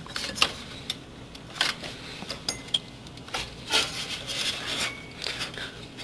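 Hands working the plastic push-pin fasteners of an Intel stock CPU cooler into the motherboard holes: scattered small clicks and scrapes as a stubborn pin is pressed down to snap into place.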